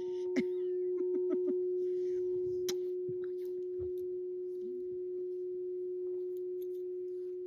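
Crystal alchemy singing bowl ringing out on one steady pure tone, slowly fading after being struck. A few faint clicks sound in the first three seconds.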